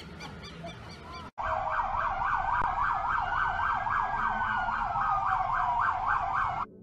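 Emergency vehicle sirens come in suddenly about a second in: a fast yelping siren sweeps up and down several times a second, with a slower wailing siren rising and then falling over it. Both stop abruptly near the end.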